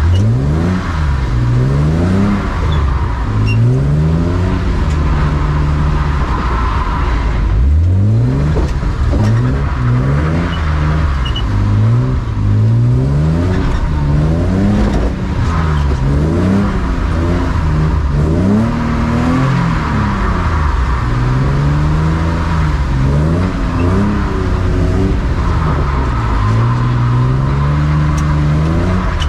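BMW E36 drift car's engine revving hard over and over as the car is drifted, its pitch climbing and dropping every second or two.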